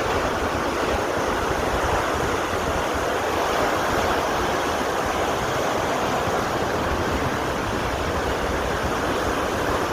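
Ocean surf on a beach: a steady wash of breaking waves that holds even throughout.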